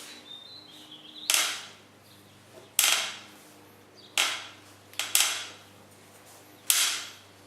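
Bicycle frame clicking under pedal load: loud, sharp clicks about every second and a half, one of them doubled. The click comes only when the bike is pushed sideways while pedalling hard, not when riding in a straight line.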